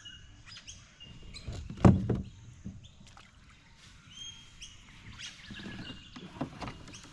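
Birds chirping in short whistled calls, with a loud thump about two seconds in and softer low knocks and sloshing around it.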